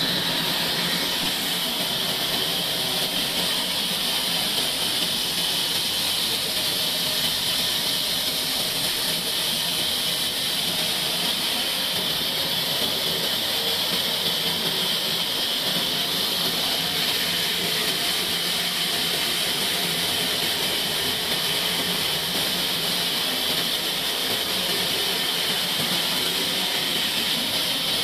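Horizontal band sawmill running and sawing lengthwise through a long log: a steady high-pitched hiss of the band blade in the wood over the machine's running noise, unchanging throughout.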